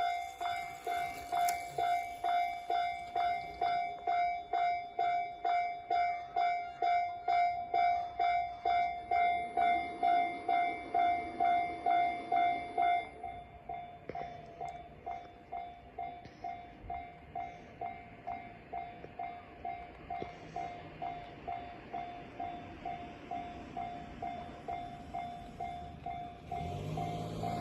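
Japanese railway level-crossing warning bell ringing about twice a second, dropping to a lower volume about halfway through. Near the end the low hum of an approaching train rises under it.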